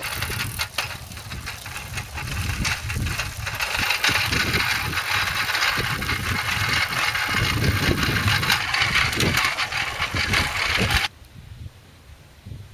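A small-wheeled folding bicycle ridden over a rough dirt track: a steady rush of wind on the microphone with the frame rattling and jolting over bumps. It stops suddenly near the end.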